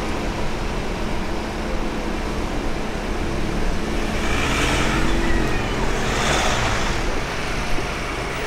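Road traffic moving over the level crossing: a steady low rumble of engines and tyres, with two cars passing about four and a half and six seconds in.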